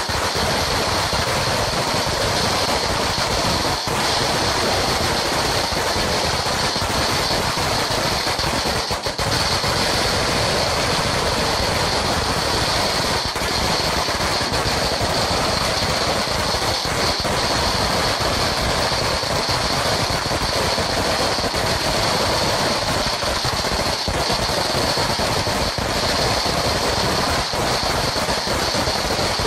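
Sinturon ni Hudas, a long belt of firecrackers, going off as a continuous rapid crackle of small bangs, steady and without a break.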